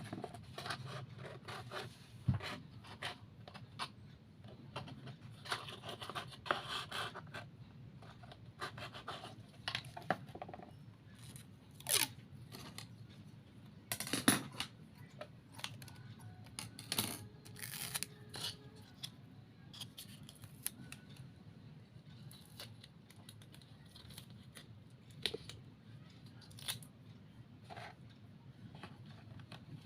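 Hand-work noises from building a model: scattered clicks, taps and scraping, with a few louder knocks, over a low steady background hum.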